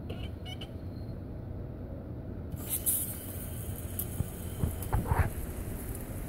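Oscillating lawn sprinkler switching on: a hiss of spraying water starts suddenly about two and a half seconds in and keeps going, over a low rumble underneath.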